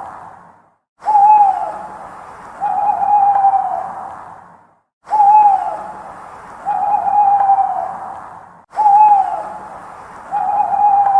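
Owl hooting in repeated pairs: a short hoot that drops in pitch, then about a second later a longer, steadier hoot. The pair comes three times over a hissy background, with a sudden cut to total silence before each pair, as in a looped recording.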